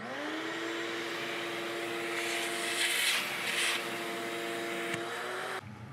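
Handheld vacuum motor spinning up with a rising whine that settles into a steady hum and hiss, sucking up cast iron chips and dust; it cuts off suddenly near the end.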